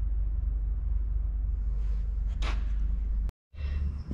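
Short hiss of an aerosol spray-paint can about two and a half seconds in, over a steady low workshop hum; the sound drops out completely for a moment near the end.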